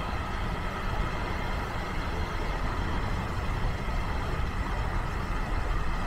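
Steady rumble of a car driving on a motorway: road and engine noise, strongest in the low range.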